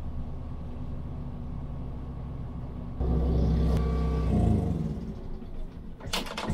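Boat's outboard motor running steadily at cruising speed, heard from inside the pilothouse cabin. About three seconds in it turns louder and deeper, then its pitch sags and it drops away, and a few sharp knocks and clatter follow near the end.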